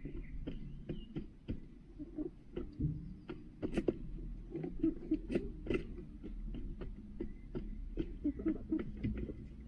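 Hens pecking feed from a plastic pan feeder: quick, irregular beak taps, with soft low clucks now and then.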